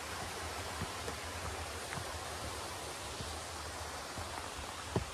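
Steady rush of a gorge stream and its small waterfalls, with a few faint ticks and a sharper knock near the end.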